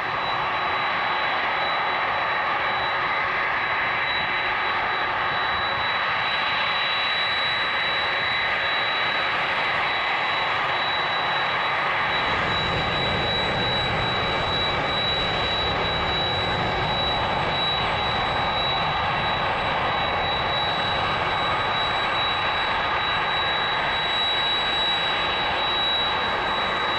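Boeing 747-400's four jet engines at taxi power: a steady jet roar with a high, even whine on top. A low rumble joins about twelve seconds in and holds.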